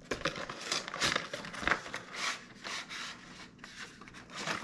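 Cardboard retail box being ripped open by hand: a quick run of tearing and crinkling rips, the loudest about a second and a half in.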